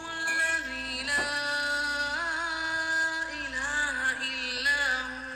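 A single voice chanting an Islamic devotional recitation in long, held notes, with slow ornamented turns and steps in pitch between them.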